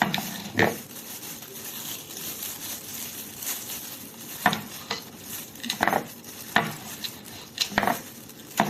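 Knife and fork clinking and scraping against a dish while cooked lamb chop is cut into small pieces and the bones are picked out; several sharp clinks come irregularly, about a second apart, over a steady hiss.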